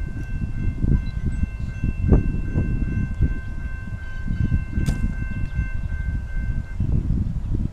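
Distant locomotive horn sounding one long, steady blast of about six and a half seconds as the train approaches, with wind buffeting the microphone underneath.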